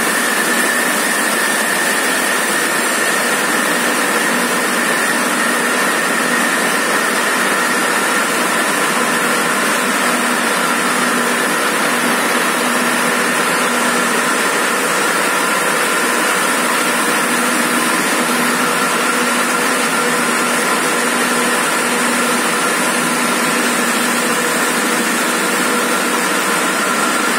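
2010 Lohia LSL6 six-shuttle circular looms weaving polypropylene tape fabric at full speed: a loud, steady mechanical din with several high steady tones and no pause.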